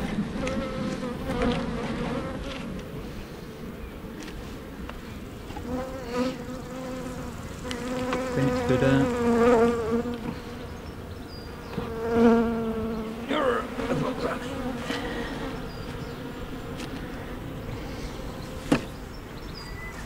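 Honeybees buzzing around an open hive, with single bees flying close past the microphone several times, their hum swelling and fading and bending in pitch as they pass. A sharp knock sounds near the end.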